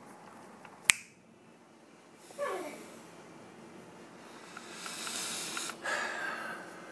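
A single sharp click, then a man's breathing and nasal sniffing sounds, with a short downward-falling sound about two and a half seconds in.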